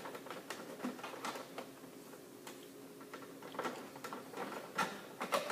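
Scattered small clicks, taps and scrapes of a screwdriver working at a screw inside a printer's plastic casing. The clicks come thicker and louder in a cluster near the end.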